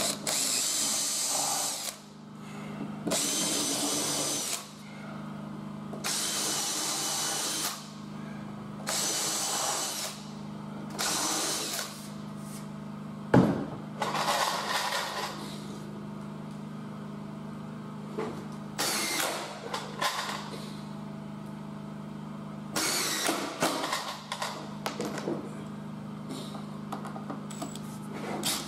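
Makita 18V cordless drill-driver and impact driver running in repeated bursts of one to two seconds, drilling and driving 4 x 50 mm screws down through oak floor capping. There is a single sharp knock about halfway through and a steady low hum underneath.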